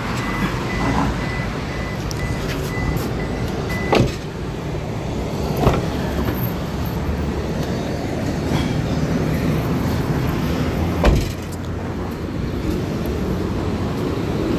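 Steady street and traffic noise, with a thin high steady beep for the first few seconds and a few sharp knocks or thumps, about four, six and eleven seconds in.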